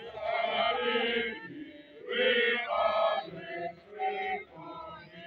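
Voices chanting together at a graveside burial rite, in two loud sustained phrases of about a second each, then softer chanting.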